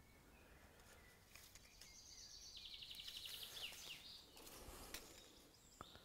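Near silence: faint outdoor ambience with a faint, rapid high trill about two and a half seconds in, and a small click near the end.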